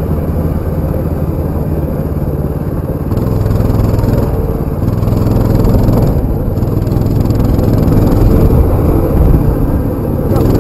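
Baja 200 mini bike engine running while riding. The revs pick up about three seconds in, then rise and fall as it rides on.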